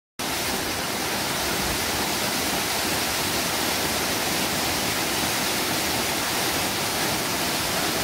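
Heebang Falls, a waterfall dropping about 28 m, rushing steadily as its water pours down onto rock.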